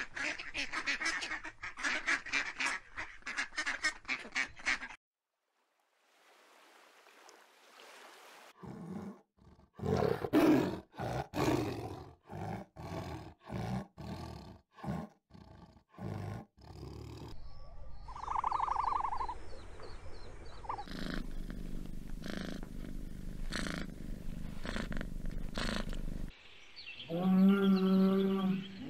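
A run of separate animal calls: a duck quacking rapidly for about five seconds at the start, then, after a quiet gap, a tiger growling and roaring in a series of short loud blasts, and near the end a cow mooing in a long pitched call.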